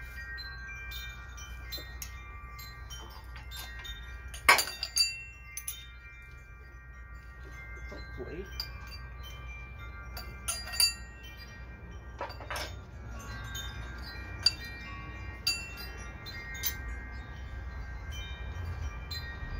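Wind chimes ringing, many overlapping tones renewed by frequent light strikes, over a steady low rumble. A few sharp metal clinks cut through, the loudest about four and a half seconds in.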